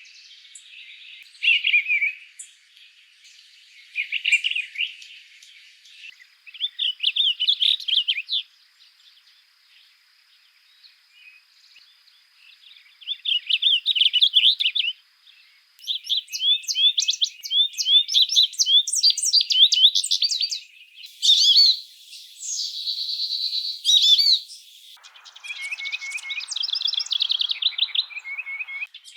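Songbirds singing: a series of different birds' songs of quick, high chirping and warbling phrases, switching abruptly several times from one bird to another.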